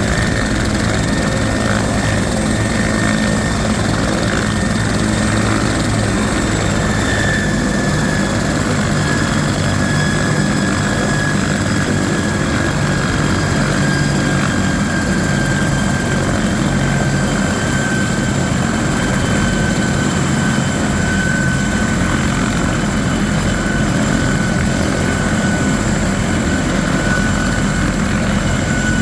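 Bell 412EP twin-turbine helicopter running steadily, the rotor's rumble under a high turbine whine that slowly falls in pitch.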